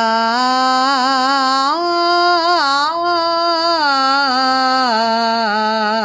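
A solo voice singing the Mayamalavagowla raga scale in akaaram, on one long unbroken "aa". The notes step up to a peak about two to three seconds in and then come back down, with wavering gamaka ornaments on several of them.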